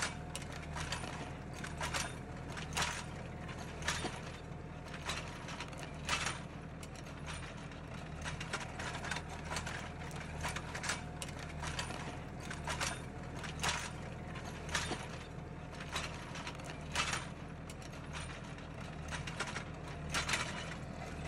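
Tractor engine running steadily while a side-mounted vineyard hoe's three-disc attachment cuts through the soil between the vines, with irregular sharp clicks and knocks from the working discs and mechanism.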